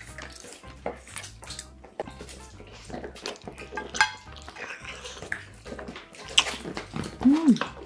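Close-miked eating sounds: metal chopsticks clicking against a metal pot and a small plate, and wet chewing of kimchi-braised pork back ribs. Near the end comes a short hummed vocal note.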